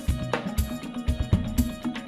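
Background music with a steady drum beat and plucked guitar.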